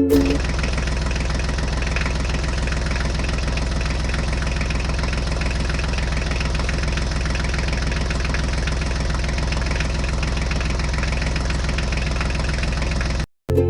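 Engine idling steadily with an even, fast low chugging, like a tractor engine, cut off abruptly near the end.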